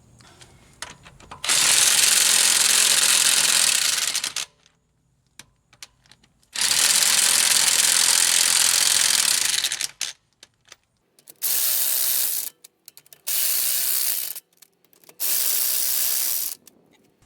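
Power impact wrench hammering on lug nuts to loosen them, in five loud bursts: two of about three seconds, then three short ones of about a second each.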